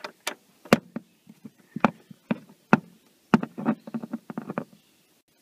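Irregular plastic clicks and knocks as a car's plastic trim panels and a screw are handled and fitted back into place, coming thick and fast near the end before stopping.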